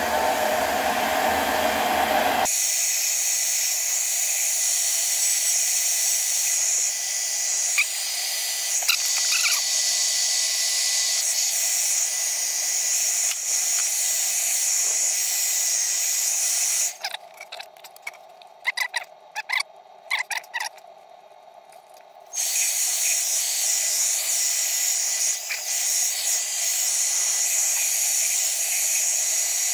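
Hand-held hair dryer blowing steadily, a high airy hiss, used to set super glue on a wooden joint. The low part of the sound drops away about two seconds in. The dryer cuts out for about five seconds past the middle, with a few small clicks, then runs again.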